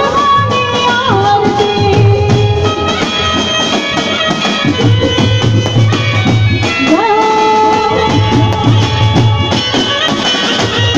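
Live Gujarati garba devotional music over a PA: a woman sings a wavering aarti melody over a driving dhol rhythm and a keyboard.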